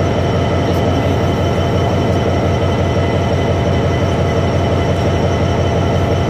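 Class 66 diesel locomotive standing still with its EMD two-stroke V12 engine idling: a steady, loud running sound with a fast, even low throb and steady hums above it.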